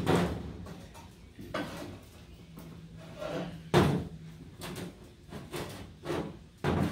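Metal clunks and scraping as a steel ring is bent into shape on a hand bender, about four separate knocks, the loudest near the middle.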